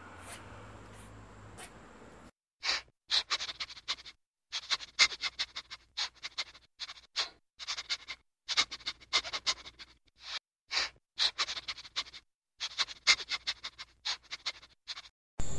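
Hare grazing close up: quick runs of crisp crunching and tearing as it crops grass, broken by short silent pauses. Before that, for about the first two seconds, there is only faint outdoor background with a couple of faint high chirps.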